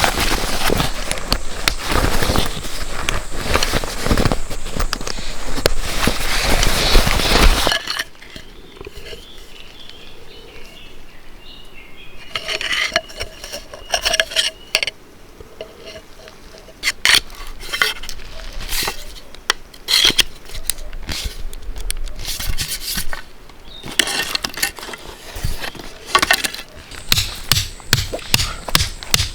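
Camping gear being handled: about eight seconds of dense, loud clatter, then quieter scattered metal clinks and knocks.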